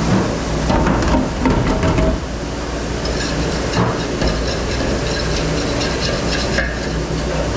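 Dish-pit noise: a steady hiss and low hum with dishes and utensils clattering, heaviest in the first two seconds.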